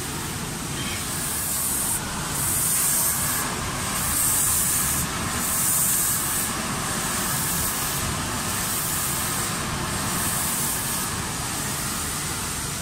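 Automatic spray-painting machine for cabinet doors, its spray guns hissing in repeated bursts about every second and a half from about two seconds in, over the machine's steady running noise.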